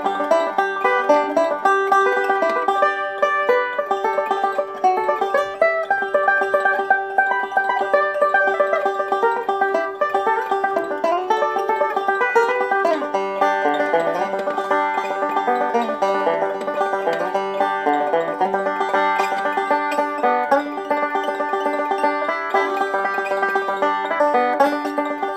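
Bluegrass banjo music: a banjo picking a steady stream of quick plucked notes, with one high note recurring throughout.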